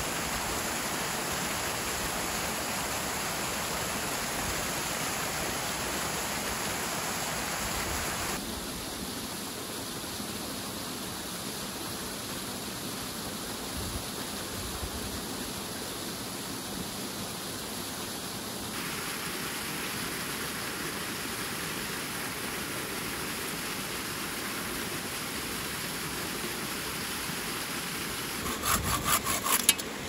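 A waterfall and creek rushing steadily, the rushing shifting in closeness and brightness twice at cuts. Near the end, a quick run of sharp, rapid strokes on wood.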